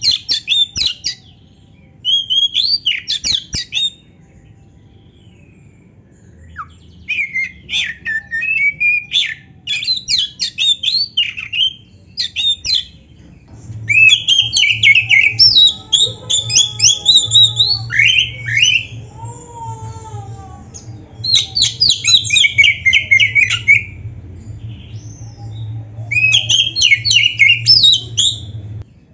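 Oriental magpie-robin singing loud bursts of rapid, varied whistled and chattering phrases, broken by short pauses.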